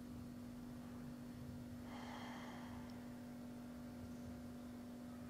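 One audible breath out, lasting under a second, about two seconds in, over a faint steady electrical hum.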